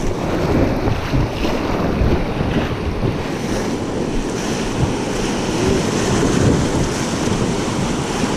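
Rushing river whitewater around a raft, with wind buffeting the microphone.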